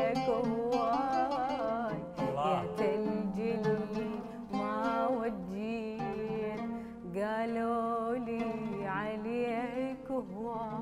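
A woman singing an ornamented Iraqi song line with heavy vibrato, accompanied by a plucked oud. The line comes in phrases, with short breaks about two seconds in and again about seven seconds in.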